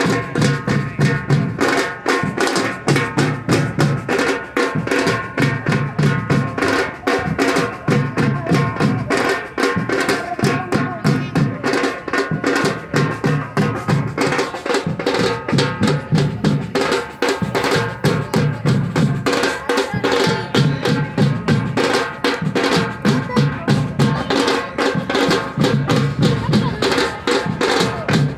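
A percussion ensemble playing metal drums together in a steady, dense rhythm, with a deep beat recurring every couple of seconds under fast sharp strikes.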